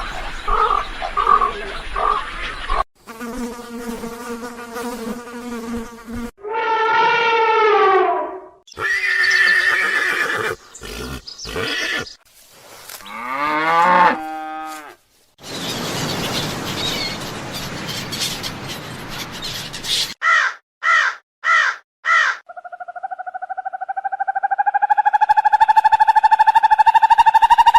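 A run of different animal calls edited one after another, with sudden cuts every few seconds: pulsed calls, drawn-out cries falling in pitch, hissing stretches, four short calls in quick succession, and near the end one long call that rises slowly in pitch and grows louder.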